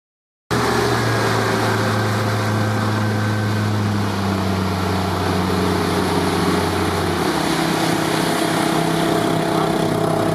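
Small Honda four-stroke outboard motor running steadily at cruising speed as the boat motors past, with water wash from the hull and propeller. The engine note shifts about seven seconds in, and the sound starts abruptly about half a second in.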